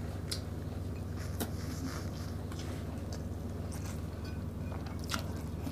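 Eating by hand and chewing: a few short clicks and smacks over a steady low hum.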